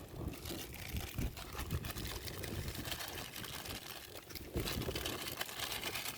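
Maggi noodles cooking in a pan over a wood fire, a steady hiss with scattered light clicks.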